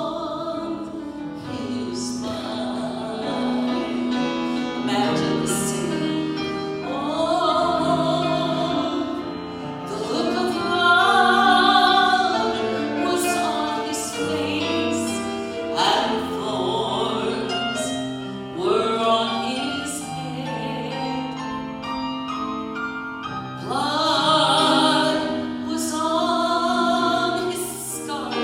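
Southern gospel singing with instrumental accompaniment: long held notes sung with vibrato, swelling and easing between phrases.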